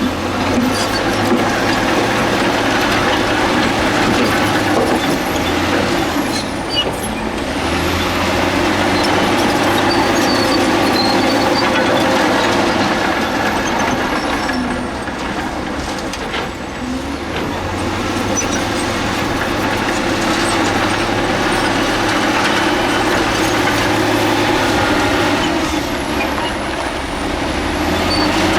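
Heavy diesel earthmoving machinery working: a steady low engine drone that shifts pitch a few times, under a loud rattling, scraping noise.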